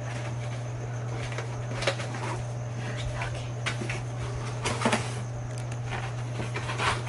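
Cardboard packaging being handled: a flat cardboard envelope slid and set down and a molded paper-pulp insert lifted out of a cardboard box, giving scattered scrapes and light knocks, the strongest about five seconds in. A steady low hum runs underneath.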